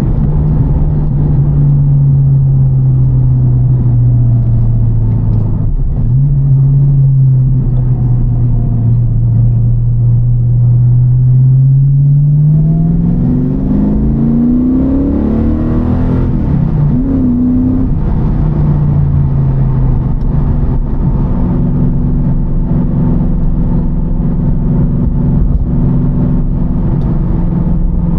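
TVR Chimaera's 4650cc V8, with a race cam and the pre-cats removed, heard on the road. It runs at a steady cruise, then about halfway through it pulls up through the revs in a rising note, drops back at a gear change, and settles into a steady cruise again.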